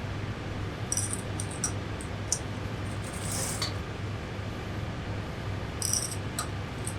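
Hands working a fur garment: short, scattered clicks and rustles, a few at a time, over a steady low hum.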